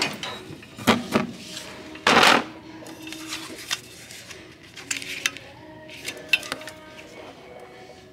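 Scattered light knocks and clicks, with one louder rustling burst about two seconds in, over faint background music.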